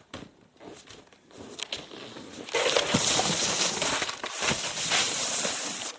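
Snowboard sliding down the snow slope: a few light scrapes, then a loud rough scraping hiss that comes in suddenly about two and a half seconds in.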